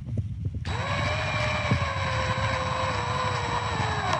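Power drill driving a star-drive wood screw into a countersunk pilot hole in a pine 1x3 corner joint. The motor starts about half a second in and whines steadily, its pitch sagging slowly as the screw draws in under load. It stops abruptly as the screw head sits flat in the countersink.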